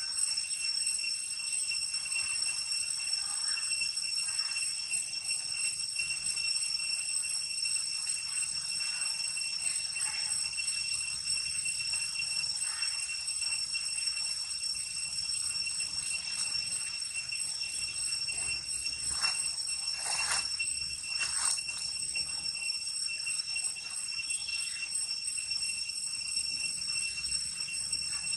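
Steady, high-pitched insect drone, likely cicadas. A few brief squeaks stand out over it, loudest about two-thirds of the way through.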